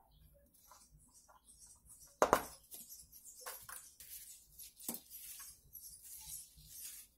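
Faint small clicks and rustles of hands handling thin hookup wires and an audio plug, with a sharper click a couple of seconds in and another about five seconds in.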